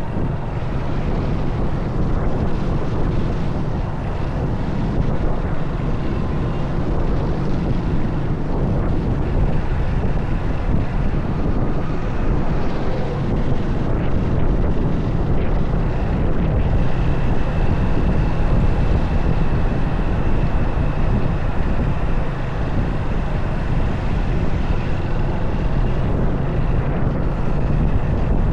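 Motorcycle riding along with wind rushing over the camera's microphone and the engine running steadily as a constant low rumble. About halfway through, a faint steady high whine joins in.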